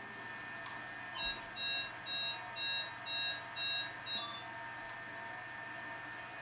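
Series of about six electronic warning beeps, roughly two a second, played through the ESU LokSound V4.0 decoder's speaker in a Liliput model of a BLS RABe 515 multiple unit: the train's door warning signal at the station stop.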